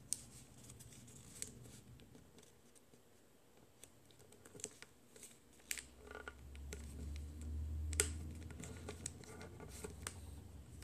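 Origami paper being folded and creased by hand against a wooden tabletop: faint scattered paper rustles and small clicks of fingers and nails pressing the fold, with one sharper tap about eight seconds in. A low rumble runs for a few seconds in the middle.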